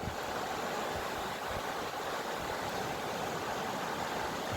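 Steady, even rush of running floodwater.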